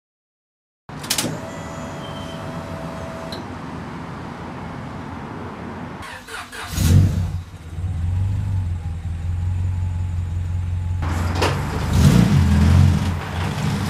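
Turbocharged Honda B-series engine in a Civic starting about halfway through, catching, then idling steadily, with a couple of revs near the end.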